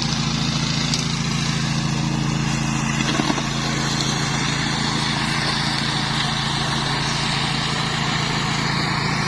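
Flail grass mower's engine running steadily, with a couple of brief knocks about three seconds in.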